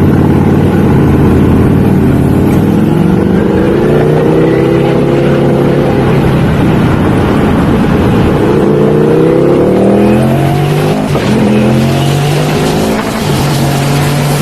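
Ducati V4 motorcycle engine running under load. Its pitch climbs and drops several times as it revs up and eases off, with two brief dips near the end.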